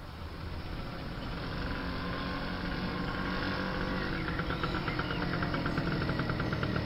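Motor scooter engine running as the scooter rides up a dirt lane, growing steadily louder as it approaches, with a fast, even rattle in the engine sound from about four seconds in.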